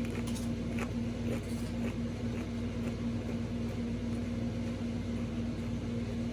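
Faint crunching of a Pringles potato chip being chewed, a few crunches about half a second apart in the first two or three seconds, over a steady mechanical hum with a low tone.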